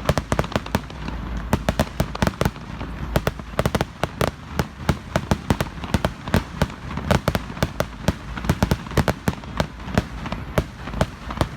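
Fireworks going off in a dense run of sharp bangs and crackles, several a second, over a low rumble.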